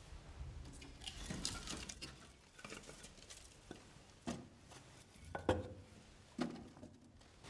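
Light rustling and handling noises, with three louder knocks and clatters in the second half, as things are moved about inside a wooden wall cupboard.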